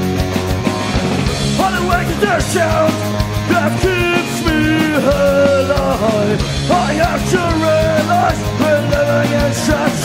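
Studio demo recording of an Oi!/streetpunk band: distorted electric guitars, bass and drums at a steady beat, with a melody line coming in about a second and a half in.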